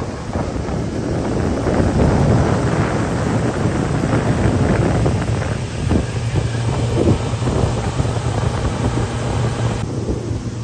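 Wind noise buffeting the microphone on a boat under way, over the steady low hum of its outboard motor and rushing water.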